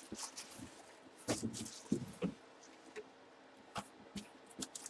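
Faint handling noises: scattered light taps, clicks and brief rustles as items are picked up and moved about.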